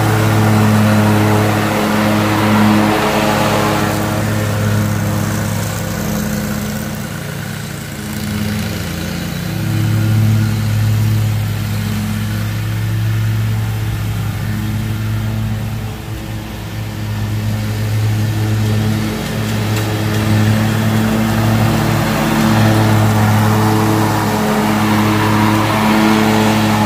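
Small petrol engine of lawn equipment running steadily at working speed, its level swelling and dipping slightly as it works.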